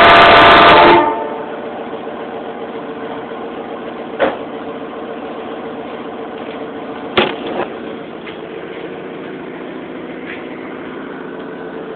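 Air horns blasting very loud, a steady multi-note chord, cutting off about a second in. After that comes a quieter steady hum with two sharp knocks.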